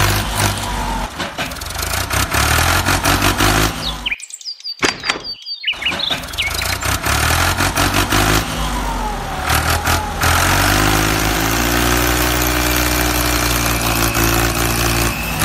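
Tractor engine running, with birds chirping; the engine sound drops out briefly about four seconds in.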